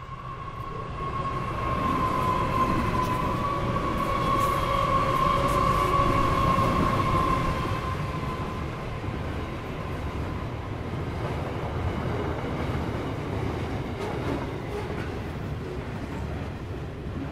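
Several NR class diesel-electric locomotives (GE Cv40-9i) pass with a high, steady whine that sinks slightly in pitch as they go by. They are followed by a long string of steel-coil flat wagons rolling past on the rails, quieter and steady.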